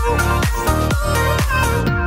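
Electronic dance music with a steady kick drum, about two beats a second, under sustained synth chords.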